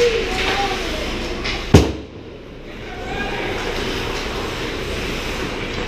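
Ice hockey play in a rink: skates scraping the ice, with one sharp, loud bang a little under two seconds in.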